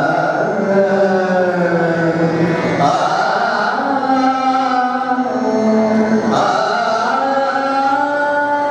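A man singing a slow devotional song in Indian classical style, holding long notes and gliding between pitches.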